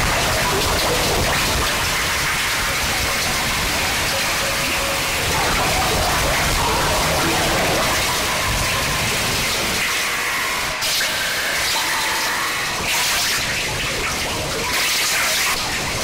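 Noise music played live: a loud, unbroken wall of static-like noise. About ten seconds in the low end drops away and it turns thinner and hissier, then shifts texture a few more times.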